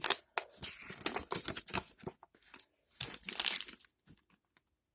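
Plastic blind-bag packaging crinkling and rustling in irregular bursts as it is handled and opened, with a brief sound like tearing; it stops about four seconds in.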